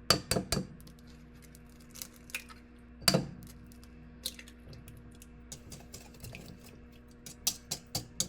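Kitchen dishes and utensils clinking and tapping while baking ingredients are measured into a bowl: a scattered string of sharp clicks and knocks, the loudest about three seconds in, over a faint steady hum.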